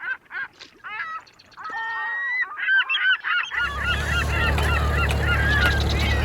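Birds calling over and over in quick, short pitched calls. About halfway through, a steady low rumble comes in suddenly underneath them.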